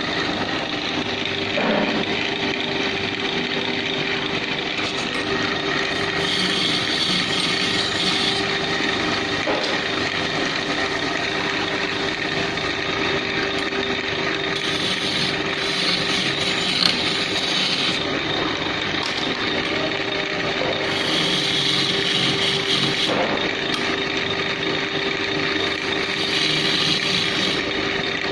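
Wood lathe motor running with a steady hum while a turning tool cuts into the spinning wooden table leg. The cutting hiss comes and goes in four passes of one to three seconds each.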